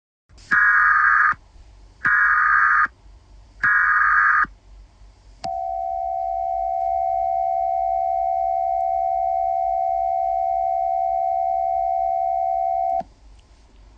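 Emergency Alert System header: three short bursts of buzzing digital data tones, each under a second long and about a second and a half apart, followed by a steady electronic attention tone held for about seven and a half seconds and cut off suddenly.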